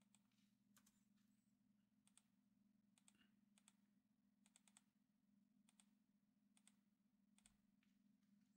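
Near silence: a faint steady hum with very faint, scattered computer keyboard clicks at irregular intervals.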